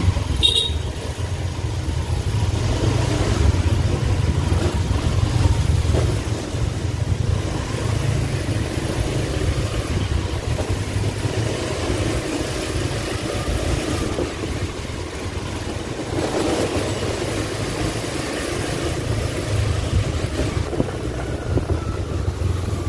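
Motorbike engine running steadily while riding, with wind rumbling on the microphone and other motorbikes in the traffic around.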